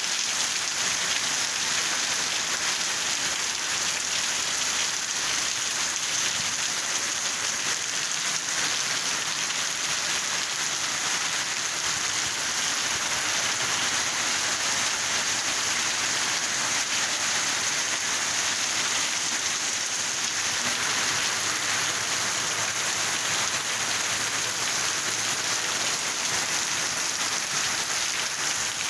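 Steady heavy rain falling and pattering on surfaces.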